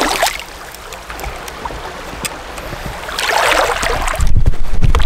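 Water splashing and sloshing as a person moves through creek water: a sharp splash right at the start and a louder burst of sloshing about three seconds in. Near the end come heavy low thumps and rumble from the camera being handled close up.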